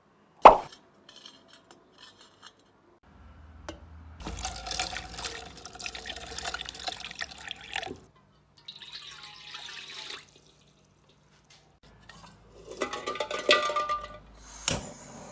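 Liquid splashing and trickling in three short spells, over a faint steady low hum that starts about three seconds in.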